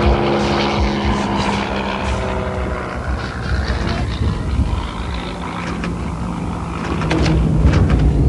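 Rally car engine running hard on a dirt stage as the car approaches, its note building again over the last few seconds, with a few sharp clicks near the end.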